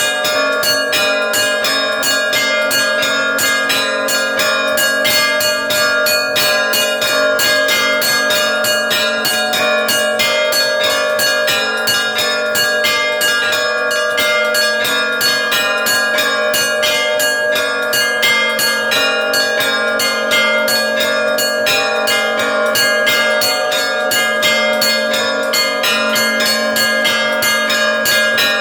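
Russian Orthodox church bells rung in a fast, unbroken peal: rapid strokes on the smaller bells over the lasting ring of the larger ones.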